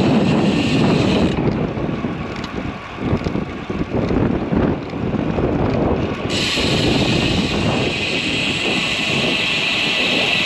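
Wind buffeting the microphone of a moving bicycle, an uneven low rumble mixed with tyre and road noise.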